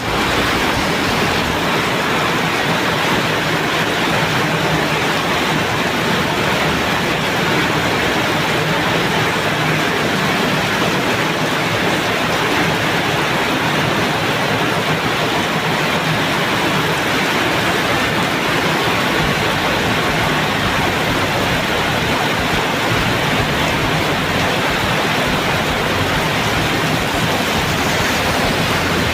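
Heavy rain pouring steadily, a dense, even hiss that does not let up.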